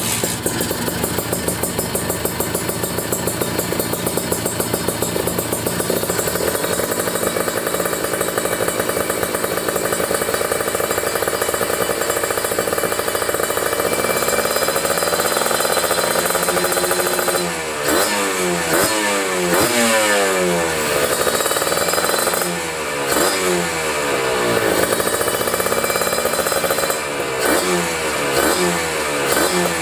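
Kawasaki Ninja 150 RR two-stroke single-cylinder engine breathing through an Arrow aftermarket exhaust: idling steadily for about half the time, then blipped repeatedly, each rev rising sharply and falling back to idle.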